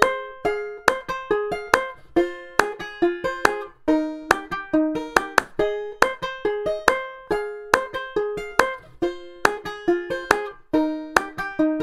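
Background music: a plucked string instrument picking a melody of quick single notes, each one ringing briefly and fading.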